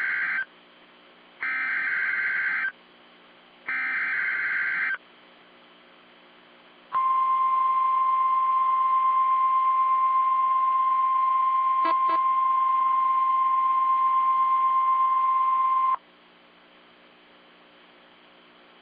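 A Sangean CL-100 weather radio's speaker sends three short, buzzy warbling bursts of SAME digital alert header data. After a pause it sounds a steady, loud single-pitch NOAA Weather Radio warning alarm tone (1050 Hz) for about nine seconds, which cuts off abruptly. The alarm tone is a test activation of the radio's warning alarm feature.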